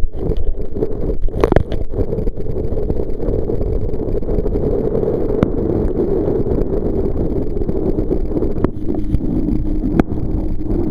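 Wind buffeting a body-worn camera's microphone and water rushing past while a kneeboard is towed at speed behind a motorboat. A few sharp knocks break through, and a steady low hum comes in near the end.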